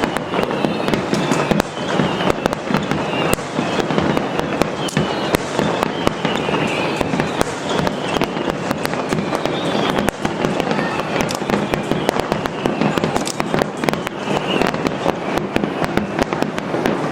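Aerial fireworks shells bursting in a dense, continuous barrage, the rapid bangs and crackle overlapping without a pause: the finale of a display.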